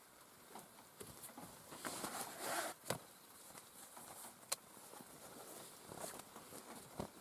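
Light rain pattering in irregular small ticks, with a brief rustle about two seconds in and two sharp knocks soon after.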